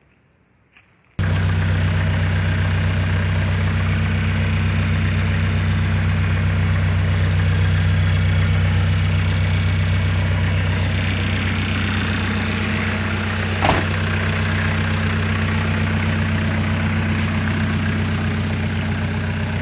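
Nissan Pathfinder's TD27 four-cylinder diesel engine idling steadily. It comes in abruptly after about a second of near silence, and there is one sharp click about two-thirds of the way through.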